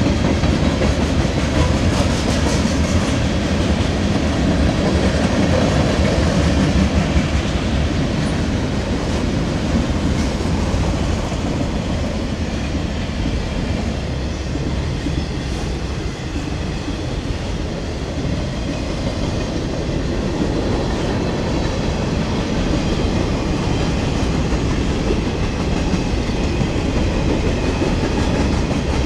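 Freight train cars (autoracks and boxcars) rolling past close by, their steel wheels clattering steadily over the rails, a little quieter around the middle before picking up again.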